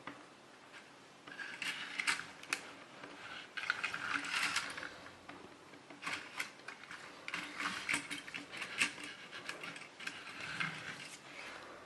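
Plastic toy vehicles being handled, giving irregular clicking and rattling of plastic parts and wheels in uneven bursts.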